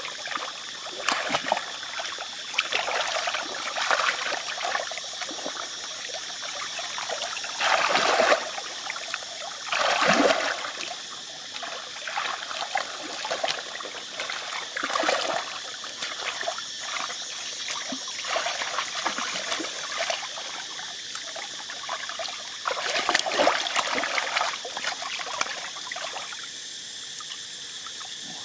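Muddy water sloshing and splashing as bare hands dig and grope through the mud of a shallow pool, with a few louder splashes, around 8 and 10 seconds in and again near 23 seconds. A steady high-pitched drone runs underneath.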